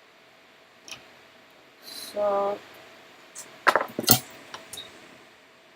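Small metal tools being handled and set down on a workbench: a faint click, then a quick cluster of sharp clinks and clatters about four seconds in, with a few lighter ticks after.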